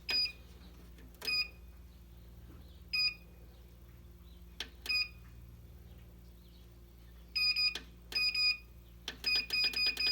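Heat press control panel beeping as its buttons are pressed to set temperature and time. Short high beeps come one at a time a second or two apart, then a quick run of beeps near the end.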